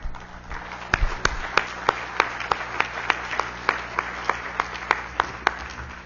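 Audience applauding, with one person's sharp claps near the microphone standing out at about three a second. It builds shortly after the start and tails off near the end.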